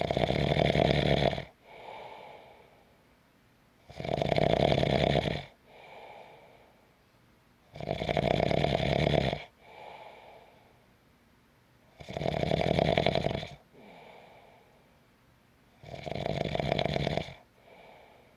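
A sleeper snoring in a steady rhythm: five loud snores about four seconds apart, each followed by a much softer breath.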